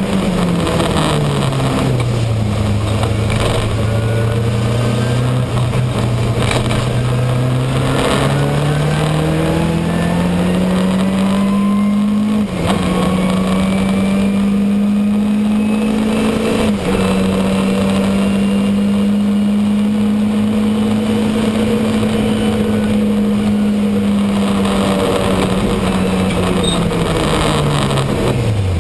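Ford Sierra RS500 Cosworth's turbocharged two-litre four-cylinder engine at race speed, heard from inside the cabin. The revs fall steeply about a second in, climb slowly back over the next ten seconds, hold high and steady, and drop again near the end.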